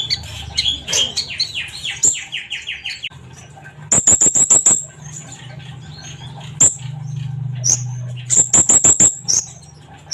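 Sunbird (kolibri konin) singing hard: fast runs of sharp, high chirps and rattling trills, with two dense rapid bursts about four and eight and a half seconds in. A low steady hum runs underneath.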